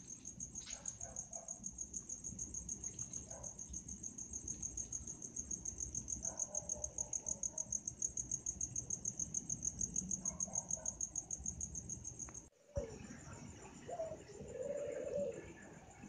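Night insects, crickets, trilling steadily in a high, fast-pulsing chorus, with a few short lower calls now and then. The sound breaks off for a moment about three-quarters of the way through, then picks up again with the lower calls more prominent.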